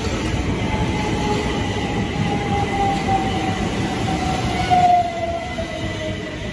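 Southern Electrostar electric multiple unit running along the platform: wheels rumbling on the rails under a whine that falls slowly in pitch as the train slows, loudest about five seconds in.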